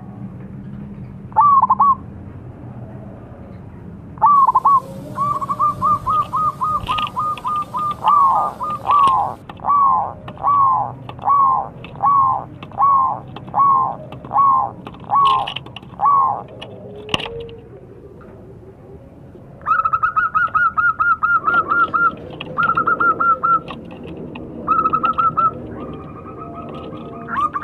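Zebra dove (perkutut) cooing: quick runs of soft notes, then a long series of evenly spaced coos about one every two-thirds of a second, a pause of a few seconds, then fast trilled runs again near the end.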